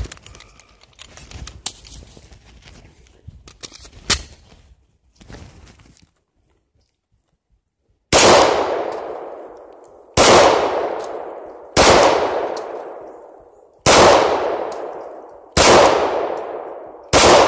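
Six shots from a Glock 19X 9mm pistol about 1.5 to 2 seconds apart, each with a long ringing decay. They come after a few seconds of faint handling clicks and about two seconds of silence.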